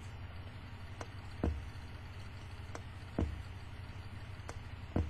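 Stylus of a 1958 Admiral 432 record changer riding the run-out groove of an LP after the music has ended. It gives a dull thump about every 1.8 seconds, once per turn of the record, with a fainter tick just before each, over a steady low hum. The changer's automatic shut-off has not tripped, so the arm stays circling in the groove instead of going over.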